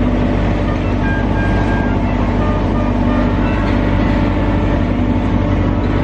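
A loud, steady engine hum, unchanging throughout, with a low drone and a few faint higher tones.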